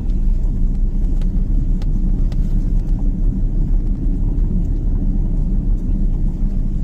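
Steady low rumble of a moving vehicle, engine and road noise, with a few faint clicks.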